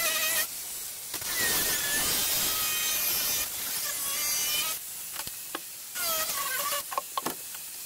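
Angle grinder cutting through fibreglass in several spells, its motor whine dipping in pitch as the disc bites and picking up again between cuts. There is a short pause about five seconds in, and a few sharp clicks shortly before the end.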